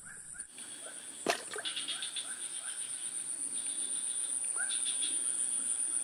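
Dense high-pitched insect chirring, steady and slowly growing louder. There is a sharp click about a second in and a few short rising chirps.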